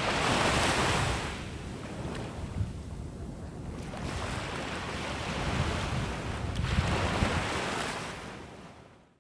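Surf breaking and washing up a sandy beach, with wind buffeting the microphone. The wash swells twice, once in the first second or so and again for a longer stretch from about four to eight seconds in, then fades out at the end.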